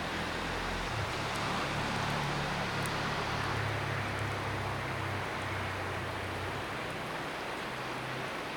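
Steady rush of flowing river water, with wind buffeting the microphone in a low rumble that swells and eases. A few faint crackles from the wood fire.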